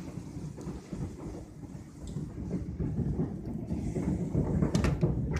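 Irregular low rumbling with scattered faint knocks, coming from a roof; its cause is unknown.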